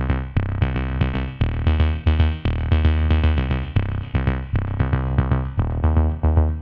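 Electronic background music with a fast, steady beat and a heavy bass line.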